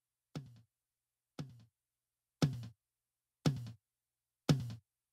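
Soloed rack tom track from a drum recording played back: five single hits about a second apart, each with a dry, short decay. The first two are quieter and the last three louder and fuller.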